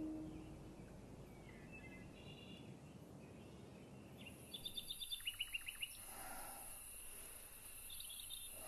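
A singing-bowl tone dies away at the start, leaving faint hiss. About four seconds in, a bird chirps in quick trills of short falling notes, and a high, steady insect drone sets in and carries on.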